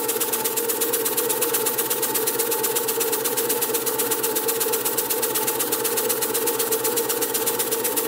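Model live steam engine running steadily, with a fast, even beat from its cylinder and moving parts.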